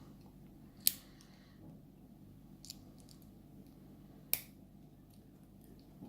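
Two sharp clicks, about a second in and again past four seconds, with a few faint ticks between: small lock parts being handled as the pins and springs are taken out of a picked pin-tumbler lock.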